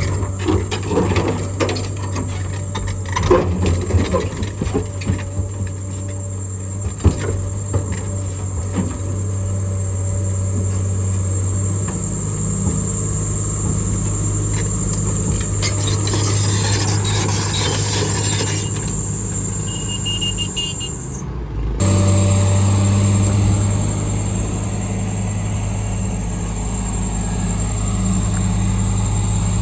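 Diesel engine of a heavy earthmoving machine running steadily with a low hum while it handles a marble block. Scattered knocks and clanks come in the first several seconds. About 21 seconds in the sound breaks off abruptly, then the engine comes back a little louder.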